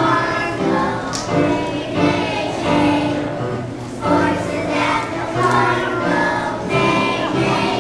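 A kindergarten class of young children singing together in chorus, with musical accompaniment.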